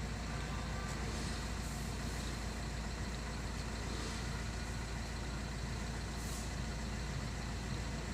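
Turbocharged vehicle engine idling steadily just after start-up, running without fault codes now that the turbo solenoid wire is repaired.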